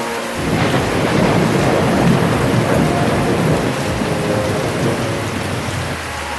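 Heavy rain falling steadily, with a long rumble of thunder that starts about half a second in, is loudest around two seconds and slowly fades away over the next few seconds.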